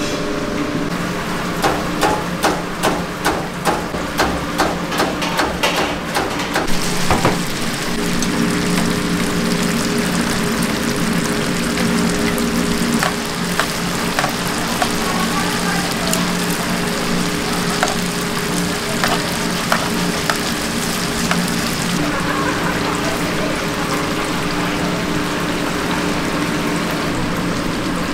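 Hot oil sizzling in a large deep fryer over a steady machine hum. Near the start there is a run of quick, evenly spaced knocks, about two or three a second, for a few seconds.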